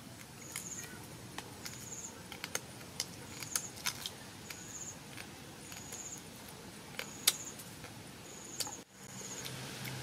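Sharp, irregular clicks and crunches of someone chewing and picking apart a roasted lizard with fingers and teeth, the loudest about seven seconds in. Behind them a short high chirp repeats about once a second.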